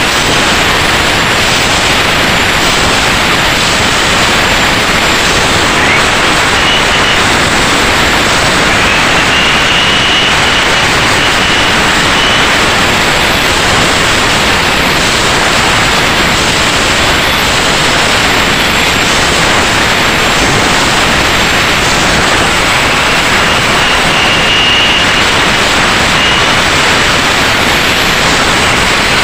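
Electric angle grinder running without a break, its disc grinding down the blade edges of a four-blade Yamaha outboard propeller to reshape them; a steady loud hiss with a faint high whine coming and going.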